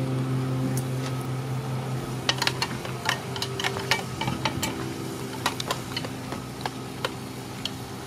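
Snails and chili frying in a pan, sizzling, while a metal spatula and spoon stir them, scraping and clinking against the pan and the shells in quick irregular clicks.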